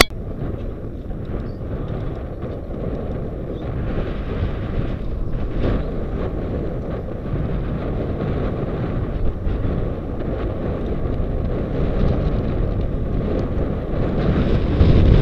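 Wind rushing over the action camera's microphone while riding a mountain bike along a road: a steady, low rush that grows louder toward the end.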